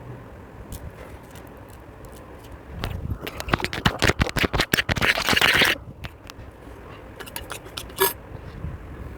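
Slime being squeezed and worked, giving a run of crackling pops and clicks for about three seconds that cuts off sharply, then a few lighter clicks and one sharper click near the end.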